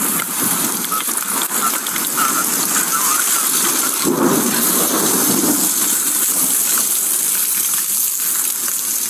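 Heavy rain falling in the storm after a tornado, a steady hiss picked up on a police body camera, with a surge of lower rushing noise about four seconds in.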